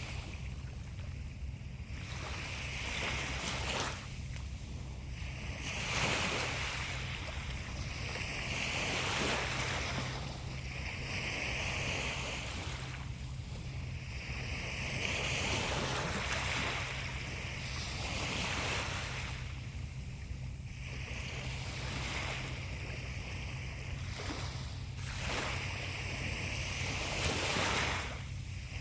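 Sea waves breaking and washing up the shore, swelling and fading every few seconds over a steady low rumble.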